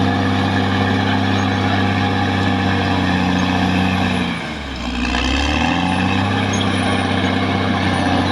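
Caterpillar D6R XL bulldozer's diesel engine running steadily. About halfway through, its revs drop briefly and then pick back up.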